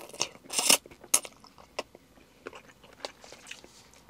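A person eating noodle soup: chewing and mouth sounds, with one loud noisy burst a little over half a second in and a sharp click just after a second, then scattered small clicks.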